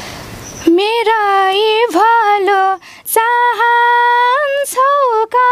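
A young woman singing a Nepali song unaccompanied. She starts about a second in, with long held notes that bend at their ends and short breaks between phrases.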